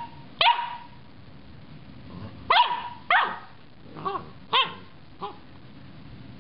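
Samoyed puppy giving about six short, high-pitched barks in an irregular string, the last ones smaller.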